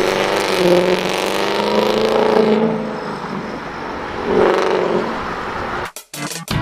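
Ford Mustang Mach 1 exhaust with a hi-flow sports cat and H-pipe, the engine revving up and down several times. Near the end it gives way to electronic music with a hard beat.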